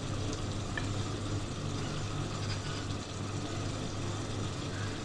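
A steady low hum with a faint even hiss beneath it, unchanging throughout, with no distinct knocks or clicks.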